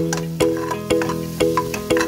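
Background music: a plucked or struck melody over chords, with new notes struck about twice a second in a steady beat.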